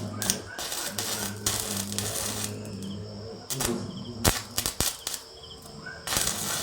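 Metalwork at a welding job: a steady electrical hum, hissing crackly stretches about a second long, and two sharp metallic taps a little past the middle.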